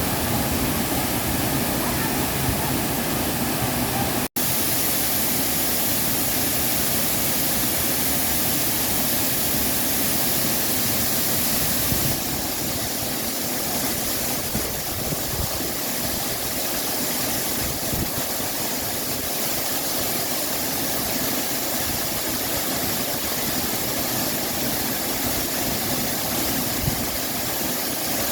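Waterfall's steady rush of falling water, an even noise without pitch or rhythm. It cuts out for an instant about four seconds in and gets slightly softer a few seconds later.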